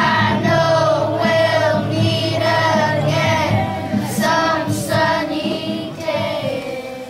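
A group of children singing a song together over an instrumental backing, with long held notes; the singing fades out right at the end.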